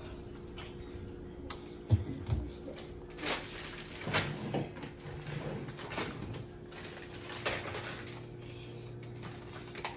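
Kitchen handling sounds: scattered clicks and knocks of containers and utensils being moved, with a sharp knock about two seconds in, over a steady low hum.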